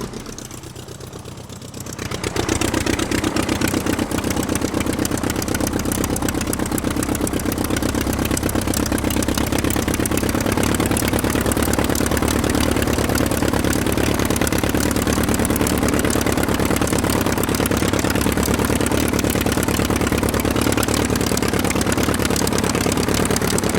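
Aircraft piston engine running with a fast, even beat. It is quieter for about the first two seconds, then comes back up and runs steadily.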